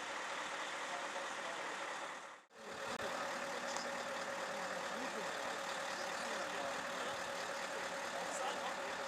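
Low-loader truck's engine idling steadily, a low even hum with faint steady tones. About two and a half seconds in the sound dips briefly to silence and comes back unchanged.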